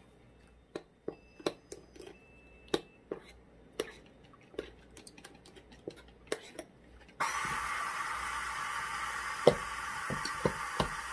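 Kitchen clatter: a string of sharp clicks and clinks of utensils or dishes, a few ringing briefly. About seven seconds in, a steady loud hiss starts abruptly, with a few more knocks over it.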